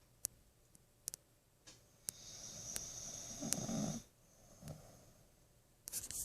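A sleeping woman snoring lightly: one long breath in, about two seconds in, that ends in a louder low snore, and a fainter breath a little later. A few faint sharp clicks.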